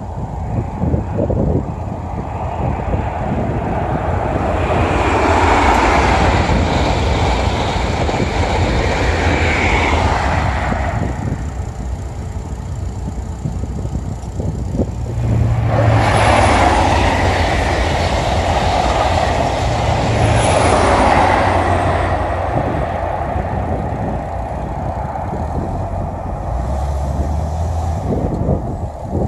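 High-speed express trains passing at speed, twice. Each pass is a rushing swell of wheel and air noise that builds over a few seconds and then fades.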